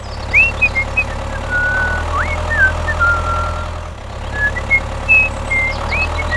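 A tractor engine running steadily with a low hum, dipping and starting again about four seconds in. Short whistled bird chirps, some rising, sound over it throughout.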